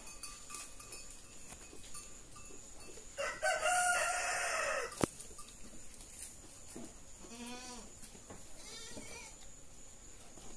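A rooster crows once, about three seconds in, the loudest sound here, its call held and falling away at the end, followed by a single sharp click. A goat gives a short wavering bleat a few seconds later.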